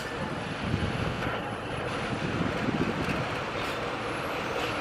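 CC203 diesel-electric locomotive running as it rolls slowly into the station hauling a local train, a steady low mechanical noise.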